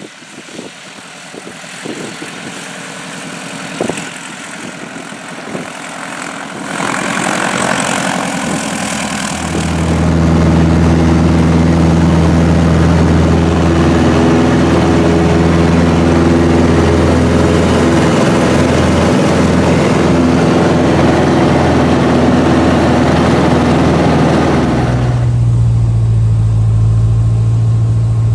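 Small propeller aircraft engine growing steadily louder as it approaches, then running loud and steady close by. Near the end the sound switches abruptly to a different, lower steady engine drone.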